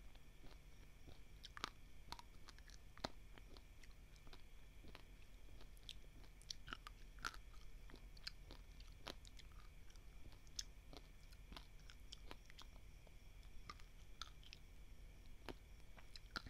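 Dry, uncooked basmati rice grains being chewed: faint, irregular crunching with sharp little crackles as the grains break.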